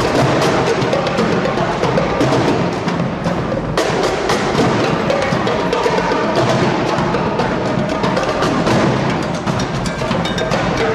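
Drum squad playing a fast, dense cadence on snare and bass drums, with sharp rim or stick clicks among the strokes.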